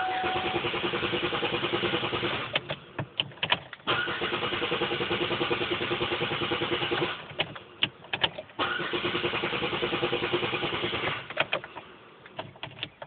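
Pontiac Grand Am's starter cranking the engine in three separate tries, a rapid even chugging that stops each time without the engine catching: the car's intermittent failure to start. Short clicks come between the tries.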